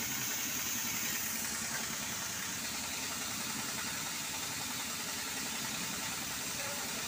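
Steady mechanical running noise with a fine, rapid pulsing, like a motor or engine running without change.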